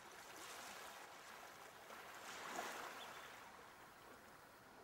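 Faint sound of gently moving water, swelling a little near the middle and fading toward the end.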